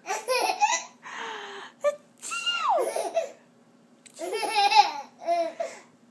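A baby laughing in several bursts, including a high squeal that falls steeply in pitch and a run of quick pulsed belly laughs near the end. A short breathy, hissing burst comes about a second in.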